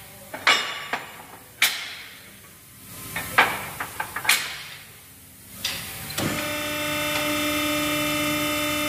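Steel leaf spring leaves for a bus clanking against each other and the steel bench as they are handled and stacked into a spring pack: sharp metallic knocks, each briefly ringing, six or seven times. About six seconds in, a steady machine hum starts and holds.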